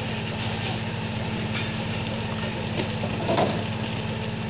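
Fishing boat's engine running with a steady drone, over scattered knocks and clatter of plastic fish crates and mackerel being handled on deck. A louder thump comes about three and a half seconds in.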